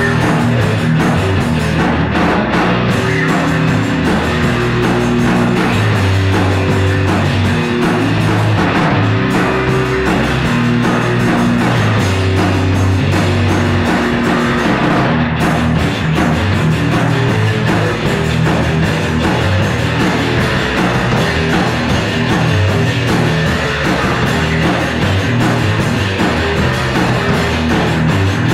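A live rock jam of drum kit, bass and electric guitar played loud through a Marshall amp, with the bass holding long low notes under steady cymbals and guitar.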